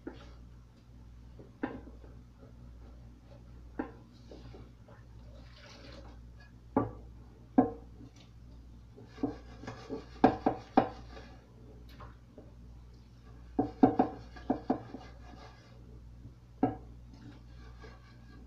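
A frying pan and dishes being handled in a stainless steel kitchen sink during washing up: scattered knocks and clatters, with bursts of rapid clinking about ten and fourteen seconds in.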